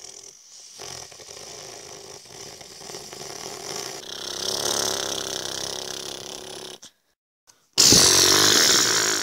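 Mechanical machine noise in edited pieces, like a power tool or chainsaw running. It swells to its loudest around five seconds in and cuts off abruptly near seven seconds. About a second later a louder burst of the same kind starts.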